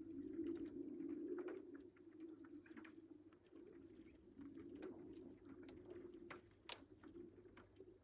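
Faint spring lake ice humming and moaning in a low, wavering tone as the ice cover breaks up, with scattered small cracks and ticks, two sharper ones about six and a half seconds in.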